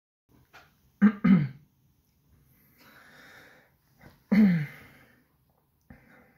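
A man making short throaty vocal sounds: two quick ones about a second in and another about four seconds in, each dropping in pitch, with breathy noise between.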